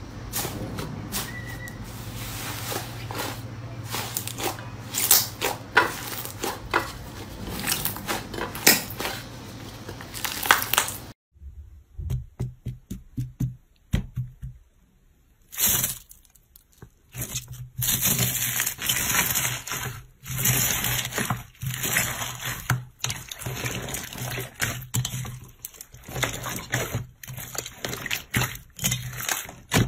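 Slime handled close up by hand: dense crackling and popping as foil-covered slime is pressed, then after a sudden cut about a third of the way in, sparse crunchy clicks from foam beads pressed by hand, and later squishing and tearing as fluffy white slime is kneaded and pulled.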